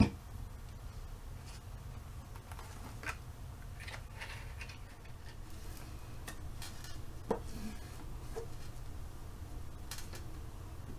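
Scattered soft clicks and rustles of cardstock being handled and pressed into place, over a steady low hum.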